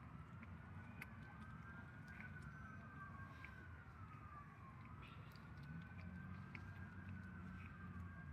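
Faint wailing siren, its pitch slowly rising and falling over and over, with scattered light ticks.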